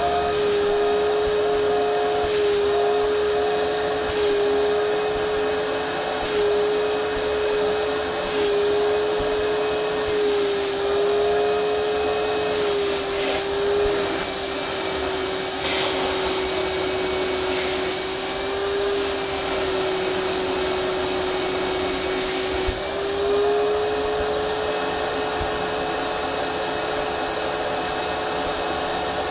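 Vacuum cleaner running steadily, its motor whine wavering and sagging slightly in pitch, then rising again a little over twenty seconds in.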